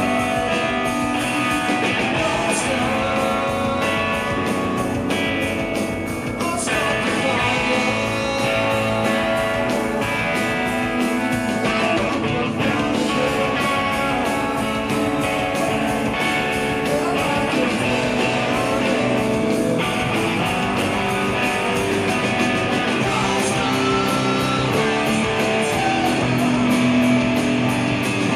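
Live rock band playing: electric guitar, bass and drums with a man singing lead vocals, the drums keeping a steady beat.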